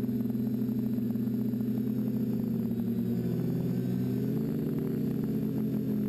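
Electric motors and propellers of a TBS Discovery quadcopter humming steadily in flight, several tones at once, their pitch shifting a little just after the middle as the motor speeds change.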